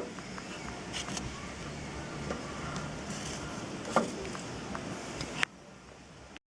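A few sharp knocks over a steady background hum; the loudest, about four seconds in, rings briefly. The background drops away suddenly near the end.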